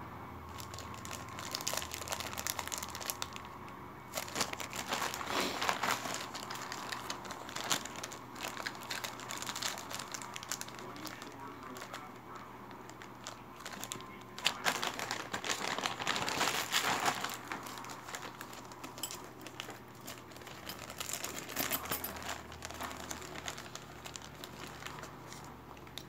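Small clear plastic parts bags crinkling as they are handled and opened. It comes in several bouts of dense crackling, loudest around the middle.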